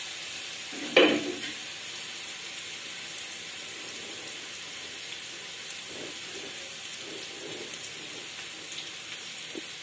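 Ground black chana dal and fried masala sizzling softly and steadily in a hot kadhai, with one thump about a second in.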